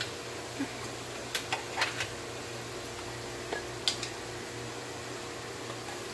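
A spoon clinking several times in quick short knocks as spices are measured out and added to the pan, over a steady low hum.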